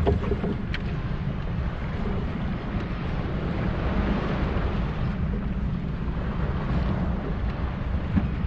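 Steady wind buffeting the microphone on an open boat, a rough low rumble that goes on without a break.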